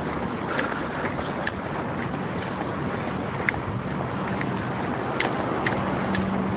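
Wind rumbling on a handheld camera's microphone while walking along a street, over a steady low hum, with a few faint clicks scattered through.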